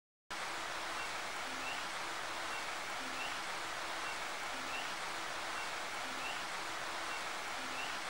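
Steady rushing noise like running water, with faint short chirps and low short tones repeating about every one and a half seconds.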